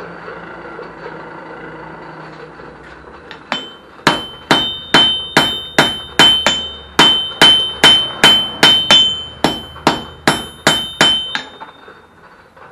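A hand hammer strikes white-hot mild steel on an anvil in a steady run of about twenty blows, roughly two and a half a second, each with a bright ring from the anvil. The blows are forge-welding a stack of mild-steel rod offcuts together at welding heat. The hammering starts a few seconds in and stops shortly before the end.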